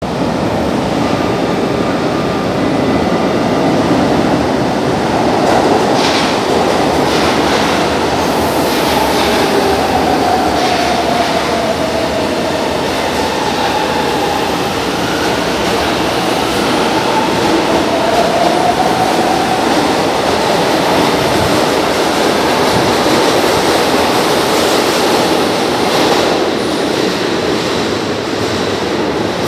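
São Paulo Metro train running through an underground station, a steady loud rumble with a run of clacks over the rail about a third of the way in, then a whine that glides down in pitch and later back up.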